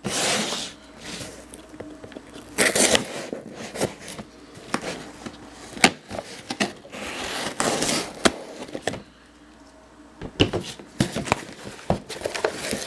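A cardboard shipping box being opened: a knife slits the packing tape, and the tape tears and the flaps scrape as they are pulled back. It comes as a run of short rasps and clicks, with a quieter pause about nine seconds in.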